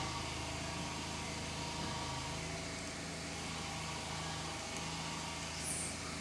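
Steady hum of a car engine and road noise, with a brief high chirp near the end.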